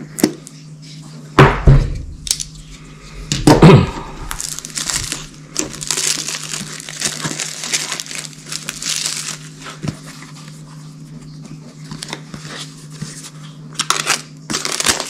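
Plastic shrink wrap being torn and peeled off a small cardboard product box, crinkling and crackling for several seconds, with more crackles near the end. Two loud bumps come in the first four seconds as the box is handled.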